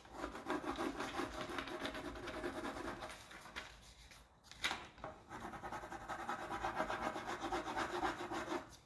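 Wooden applicator stick rubbing a rub-on transfer down onto a hat box in quick, scratchy back-and-forth strokes. The rubbing comes in two spells, with a short break a little before the middle that holds a single click.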